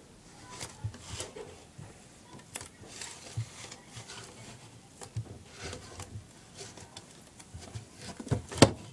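Toy packaging being handled: scattered light taps, clicks and rustles as the box is turned over in the hands, with one sharper knock near the end.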